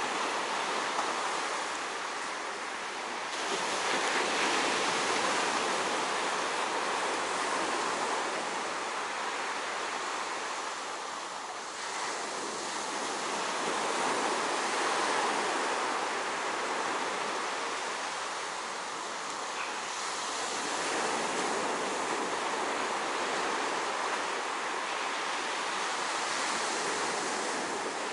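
Steady rush of sea waves and wind, swelling and easing every few seconds.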